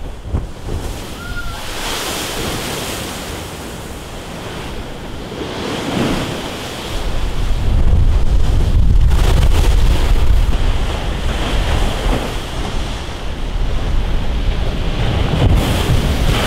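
Storm waves surging and breaking against a seawall, with wind noise on the microphone that grows heavier about halfway through. Near the end a wave crashes against the wall and throws spray up over it.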